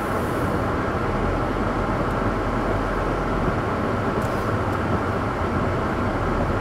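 Car driving slowly on wet pavement: a steady mix of low engine hum and tyre noise.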